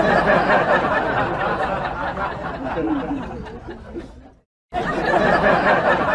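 Many people talking and laughing at once, a dense crowd babble. It cuts off abruptly after about four seconds and starts again a moment later.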